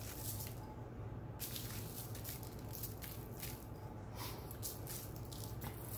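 Dry seasoning mix sprinkled by hand from a ramekin onto raw chicken pieces on a parchment-lined sheet pan: soft, irregular rustling hisses as pinches fall and fingers rub, over a faint steady low hum.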